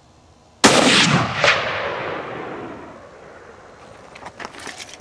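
A single rifle shot fired at a hillside, with a rolling echo that comes back about a second later and dies away over two or three seconds. A few faint clicks follow near the end.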